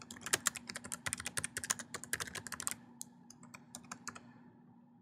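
Typing on a computer keyboard: a quick run of keystrokes for about two and a half seconds, then a few scattered presses that stop about four seconds in.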